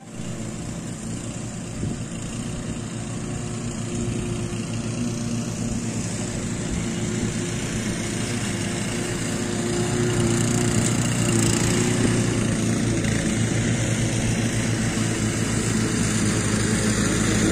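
Small petrol engine of a walk-behind lawn mower running steadily, growing louder over the first ten seconds or so and then holding.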